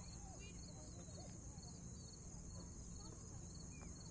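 Faint children's voices calling and shouting at play, with short scattered cries over a steady chorus of night insects such as crickets, trilling in a continuous high pulse.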